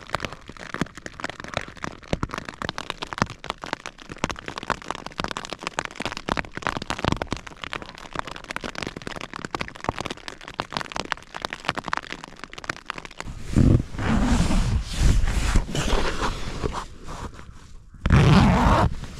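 Rain pattering on the taut eVent fabric of a Rab Ridge Raider hooped bivy, heard from inside as a dense run of sharp, irregular ticks. About thirteen seconds in, a louder rustling rush takes over, and another comes near the end.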